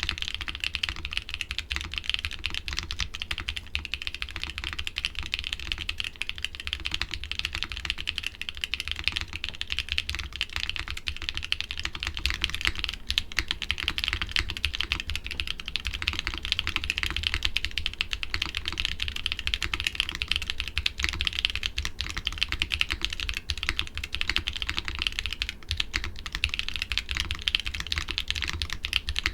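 Mechanical keyboard with doubleshot keycaps typed on steadily, a dense run of key clacks. About 13 seconds in, the keycaps change to a different set.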